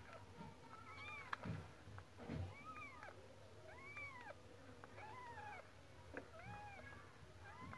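Newborn kittens mewing faintly: short, high cries that rise and fall, about one a second, with a couple of soft low thuds about a second and a half and two and a half seconds in.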